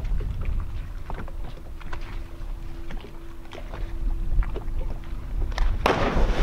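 A boat engine idles with a steady hum under wind rumbling on the microphone. Near the end, a sudden loud rushing splash breaks in as a cliff jumper hits the lake water.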